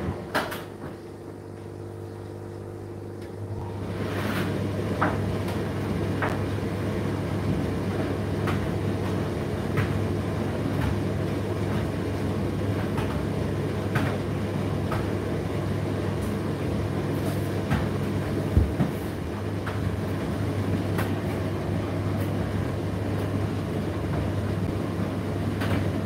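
Indesit IDC8T3 condenser tumble dryer running mid-cycle: a steady motor and fan hum. It is quieter for the first few seconds and picks up about four seconds in. The turning drum gives a light knock roughly every second and a bit.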